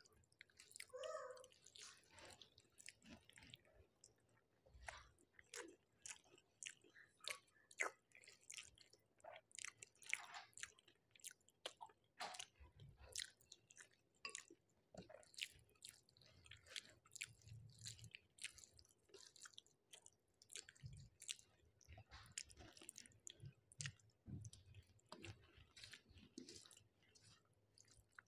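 Faint, close-miked chewing of rice and curry: irregular wet mouth clicks and smacks.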